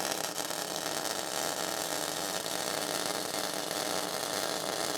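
MIG welding arc running a bead with a steady, even crackle, the welder running short of its CO2 shielding gas, which leaves the weld porous.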